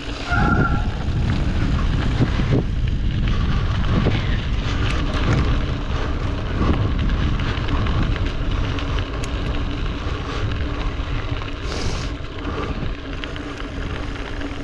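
Wind buffeting the camera microphone while riding a bicycle at speed, a steady dense rumble.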